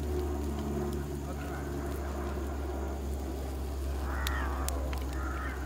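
Steady low motor hum, with a brief higher-pitched sound about four seconds in.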